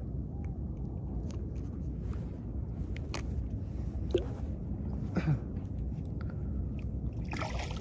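Hands unhooking a small freshly caught grouper and handling the hook and line: scattered small clicks and rustles, with two slightly louder short sounds about four and five seconds in, over a steady low rumble.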